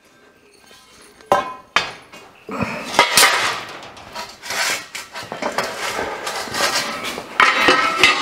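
Lengths of steel pipe and square tubing clanking and ringing as they are handled and laid on a workbench. Two knocks about a second in, then near-continuous metal clatter, loudest about three seconds in and again near the end.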